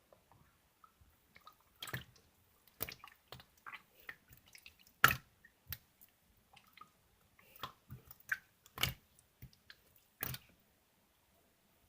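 Cheese slime being squished and pressed by hand, making an irregular string of small wet clicks and pops, with a few louder pops.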